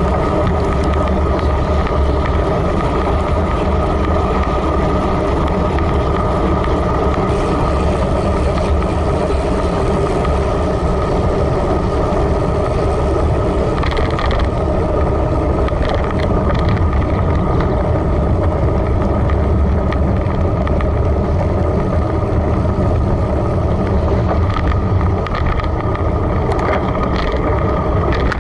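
Steady wind rush and road rumble from a road bicycle ride, picked up by a handlebar-mounted camera at around 30 km/h on wet asphalt. It is loud and even throughout, with a heavy low rumble.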